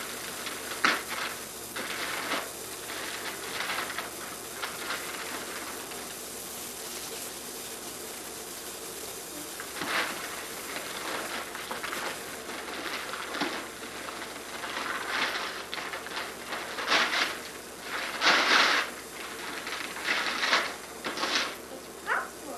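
Wrapping paper rustling and tearing in irregular short bursts, busiest in the second half, over a steady hiss.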